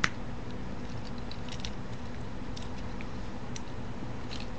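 Faint scattered clicks and ticks of plastic toy robot parts being handled and folded, with one sharp click right at the start, over a steady electrical hum and hiss.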